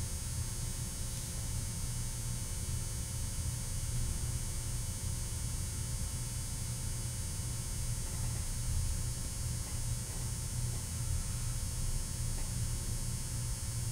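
A steady low hum with a faint buzz, even in level throughout.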